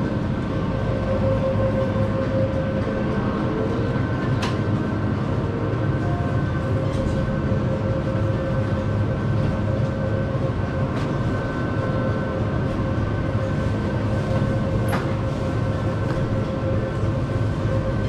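Vehicle running steadily: a low rumble with a constant hum and a couple of faint clicks.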